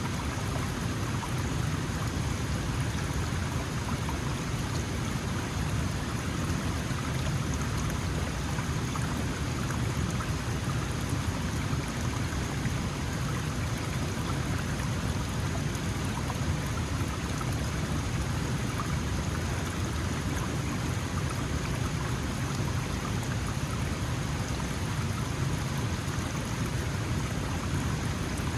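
Small mountain stream flowing steadily, a continuous rush and babble of water.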